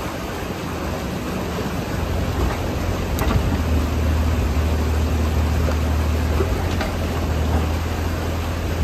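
Bobcat E35 mini excavator's engine running, its low hum growing louder about three seconds in as the boom and bucket work. A steady rush of water spills over the beaver dam underneath.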